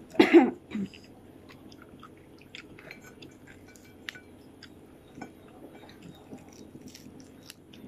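Close-up chewing and crunching of crispy fried fish, with many small scattered crackles and clicks. A brief, loud voice sound comes right at the start.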